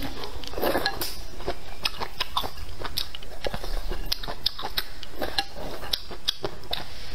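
Close-miked eating: rice noodles slurped and chewed out of spicy red broth, with many wet mouth clicks and chopsticks clinking against the bowl.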